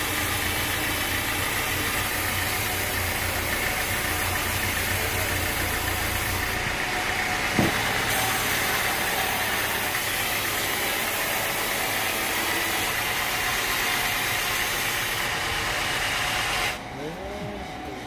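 An engine running steadily, with a single sharp knock about seven and a half seconds in; near the end the noise drops suddenly to a quieter level.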